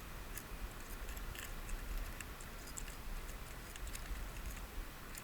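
Scattered light clicks and ticks, a few a second and unevenly spaced, over a low steady rumble.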